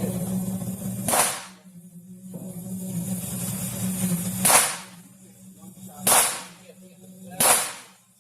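Four single shots from a home-built AR-15 pistol, fired one at a time and spaced unevenly, one to three seconds apart. Each is a sharp crack with a short ringing tail.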